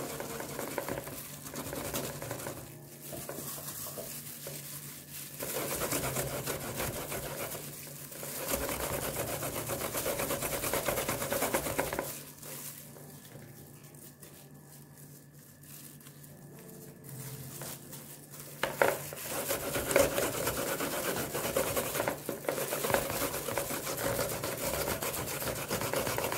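Raw cassava being grated by hand on a handheld grater into a plastic bowl: a rapid, continuous rasping scrape of repeated strokes, easing off for several seconds about halfway through.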